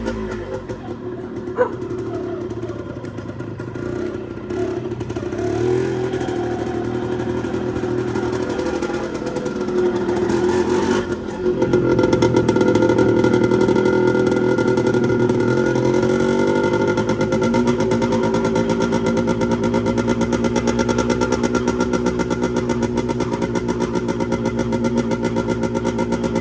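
Yamaha DT 125 motorcycle's two-stroke single-cylinder engine running steadily, getting louder about halfway through and staying loud.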